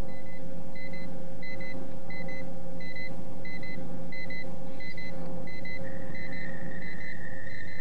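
Electronic synthesized soundtrack: a steady low drone under a pair of short, high electronic beeps that repeats about every two-thirds of a second. About six seconds in, a steady high tone enters and holds.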